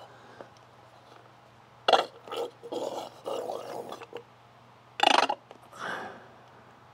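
Squeeze bottle of lower-unit gear oil being pressed against the drain hole of a Honda BF2.3 outboard's gearcase. Several short, irregular bursts come as oil is forced in and air escapes back past the nozzle.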